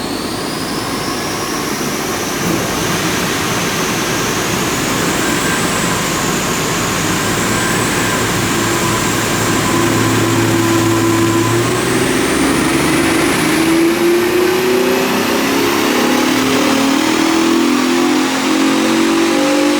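Holden VF Commodore SV6's 3.6-litre LFX V6, breathing through an aftermarket full exhaust and intake with a tune, running under load with its engine note slowly climbing in pitch over the second half. A thin high whine rises steadily alongside it.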